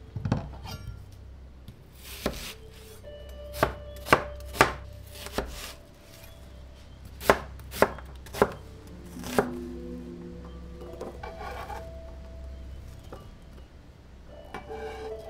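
Chef's knife chopping an onion on a plastic cutting board: about ten sharp knife strikes at an uneven pace. The chopping stops about ten seconds in.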